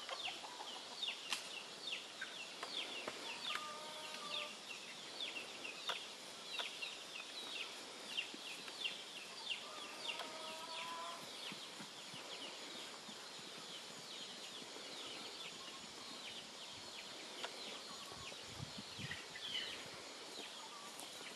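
Faint birds calling: a steady run of short high chirps, with a couple of brief lower calls about 4 and 10 seconds in. A few low thuds come near the end.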